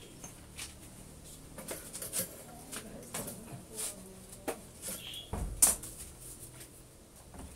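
Scattered light clicks and knocks of hand work on a corrugated metal roof, with one louder thud about five and a half seconds in.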